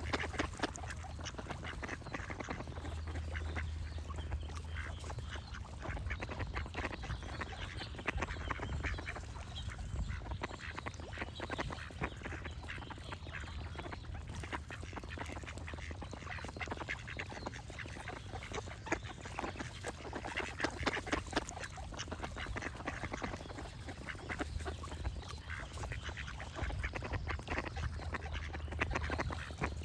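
Duck quacking again and again, with small birds singing in the background over a steady low hum.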